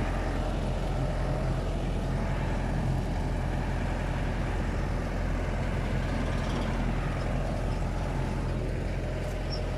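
An engine running steadily at a constant speed, a low, even hum with no change in pace.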